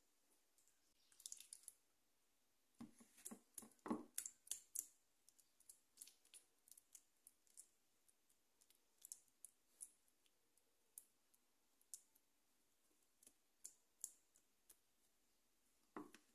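Faint, scattered clicks and scrapes of a spoon against a plastic tub and a glass dish as thick doce de leite is scooped and pressed down, with a denser run of clicks about three to five seconds in.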